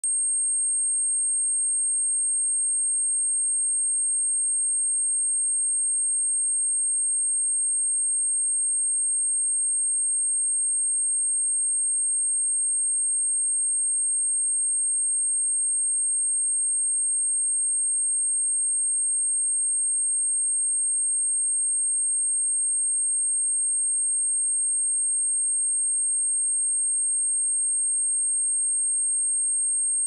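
A pure 8526 Hz sine-wave test tone, one steady high-pitched whistle-like note held without change, as used to test speakers or headphones and to shake water and dust out of a speaker.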